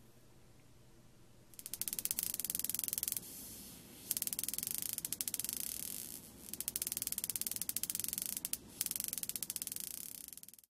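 Homemade high-voltage negative ion generator sparking: a rapid, fast-ticking crackle of electric discharges in four bursts of about two seconds each, starting a moment after it is switched on.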